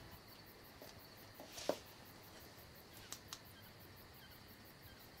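Faint night ambience of crickets with a rapid, even chirp. A little under two seconds in comes one short sharp crack, and about a second and a half later two quick clicks.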